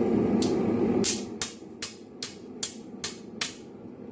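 Farrier's hammer striking a steel flat bar with its round face to texture it: seven quick, even blows, about two and a half a second. They follow a steady low rush of noise that stops about a second in.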